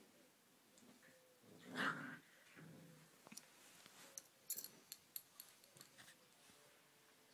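Boxer puppies playfighting: one pup gives a short play growl about two seconds in, followed by scuffling and a scatter of sharp clicks as they wrestle on the bedding.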